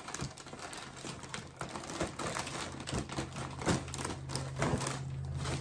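Paper packing wrap crinkling and rustling as hands pick at it to free it where it is taped, with many irregular sharp clicks and taps. A low steady hum runs underneath.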